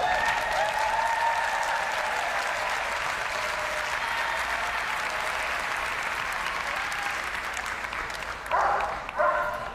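Audience applauding and cheering, with a long whoop over the clapping at the start. A few short voices come in near the end.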